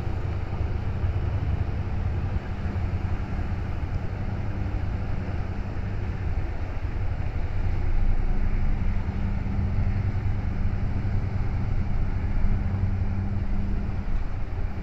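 Car ferry Kyokuyo Maru's diesel engines running with a steady low drone as the ship moves off, a little louder from about halfway through.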